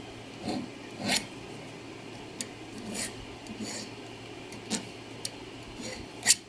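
Fine needle file drawn across the end of a small steel pin held in a pin vise, deburring its sides: a handful of short, irregularly spaced file strokes, the loudest near the end.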